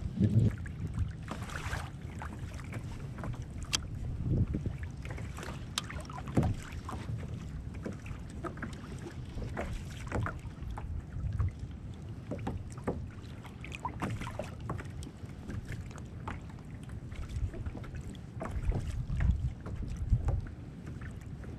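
Wind buffeting the microphone in a low rumble, with water lapping against a plastic fishing kayak's hull and scattered light ticks and knocks. The wind gusts louder near the start and again near the end.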